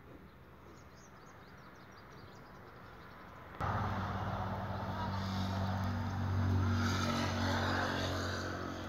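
Mahindra 265 DI tractor's three-cylinder diesel engine running steadily, coming in abruptly about three and a half seconds in.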